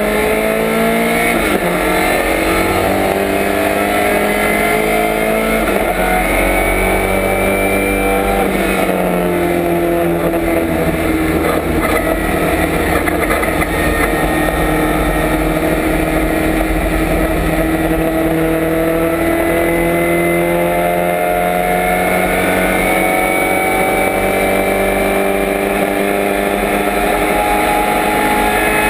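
1965 Lotus Cortina race car's twin-cam four-cylinder engine at racing speed, heard from inside the cabin. The revs climb and fall through the gears, with a sharp drop about six seconds in, a long fairly steady stretch through the middle, and a steady climb under acceleration near the end.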